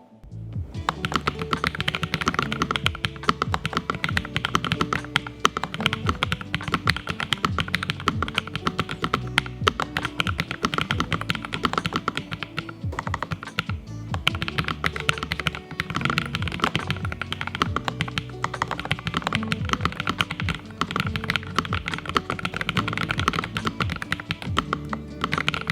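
Fast typing on a Lofree Flow Lite low-profile mechanical keyboard: a dense, continuous patter of key clicks with a brief lull about halfway through, over background music.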